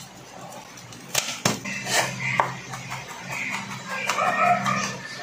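Kitchen knife chopping garlic on a bamboo cutting board: a few sharp knocks in the first half, under a steady low hum and a drawn-out, wavering call-like sound in the background near the end.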